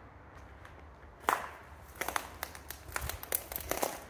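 Footsteps on a barn floor: after a quiet first second, a run of irregular sharp steps and clicks.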